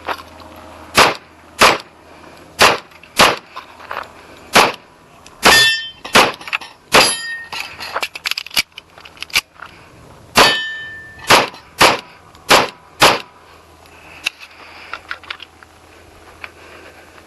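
A .45 ACP 1911 pistol fired in quick pairs through an action-shooting stage: about sixteen sharp shots with short pauses between strings. At least twice a steel target rings after a hit.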